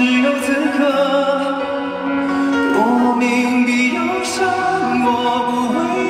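A man singing live into a handheld microphone over backing music, holding long notes with vibrato about halfway through.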